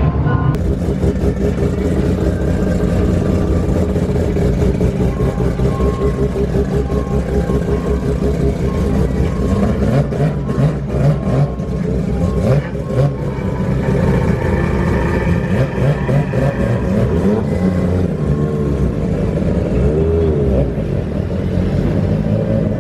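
Car engines running loud and continuously, with revs rising and falling.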